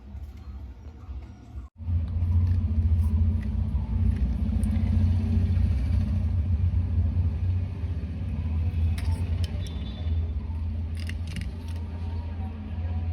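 A steady low rumble that starts about two seconds in, after a brief dropout, with a few light clicks later on.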